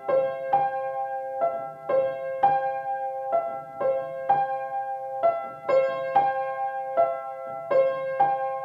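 Background piano music: slow, gentle notes struck about twice a second in a repeating pattern.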